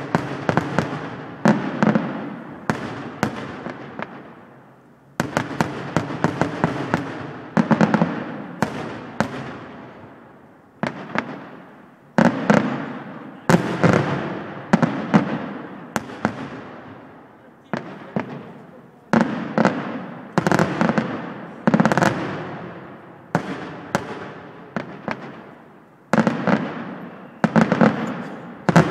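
Aerial fireworks display: a rapid series of shell bursts, sharp bangs coming in quick clusters, each trailing off in a long rolling echo, with a brief lull a few seconds in.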